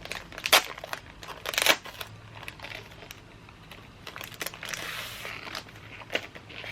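Crinkling and rustling of something being handled, with sharp clicks, the two loudest about half a second and a second and a half in.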